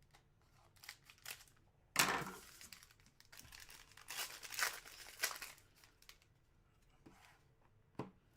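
Plastic card packaging being torn open and crinkled by hand, in separate rustling bursts: a sharp rip about 2 s in, a run of crinkling around 4 to 5 s, and a short snap near the end.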